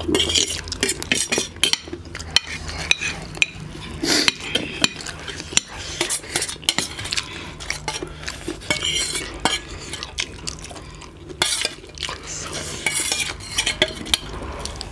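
Spoons and forks clinking and scraping on steel and ceramic plates during eating, with short slurps of noodles in between.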